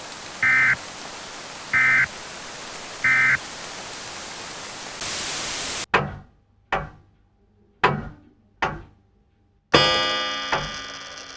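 EAS End of Message signal over a steady radio hiss: three short two-tone data bursts about 1.3 s apart, closing the weather radio warning. Then a short burst of static and a string of sudden hits that die away quickly, one near the end ringing with several tones.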